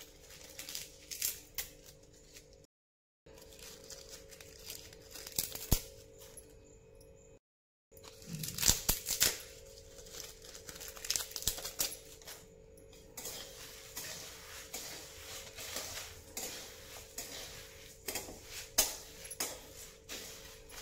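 Dry bay leaves and dried red chillies crackling and rustling as they are broken by hand, and coriander seeds rattling in a steel kadhai, with scattered small clinks over a steady faint hum. The sound drops out twice, briefly.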